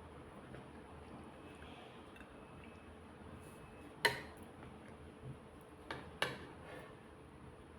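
Eating at a plate: quiet at first, then a sharp click of a utensil against the dish about halfway through, followed by a few more taps close together.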